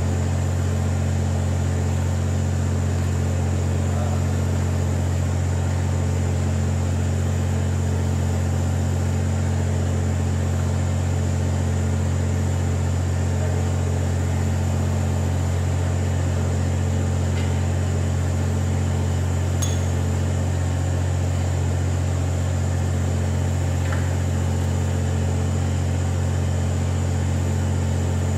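An engine idling with a steady, unchanging low hum, with a single light metallic clink about twenty seconds in.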